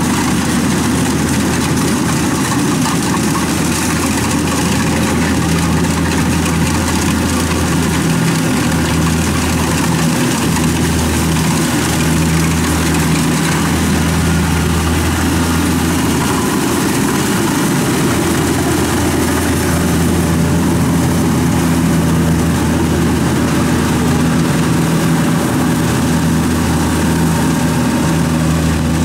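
Kubota DC-70 combine harvester's diesel engine and threshing machinery running steadily under load while harvesting rice, a constant even drone.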